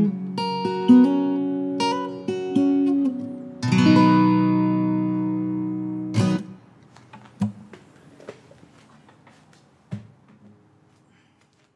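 Acoustic guitar playing the last bars of a song: a few picked notes, then a final strummed chord about four seconds in that rings for two seconds and is cut off with a damping thump. A few faint knocks follow as it dies away.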